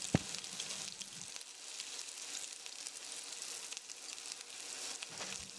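Masala-coated cauliflower florets (gobi 65) deep-frying in hot oil: a steady sizzle with many small crackles.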